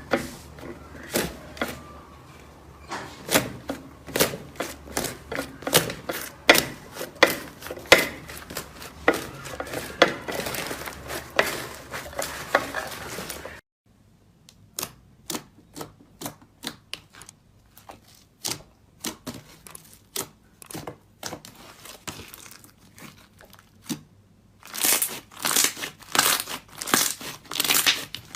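Slime being squeezed and poked, giving many quick crackling pops and clicks. The pops are dense at first, sparser after about halfway, and bunch together again near the end.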